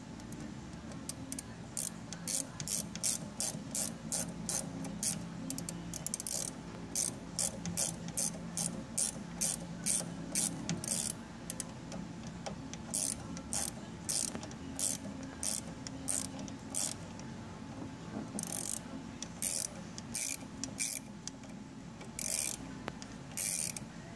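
Ratcheting wrench clicking in runs of strokes with short pauses, as threaded fittings are tightened into the lid of an oil catch can.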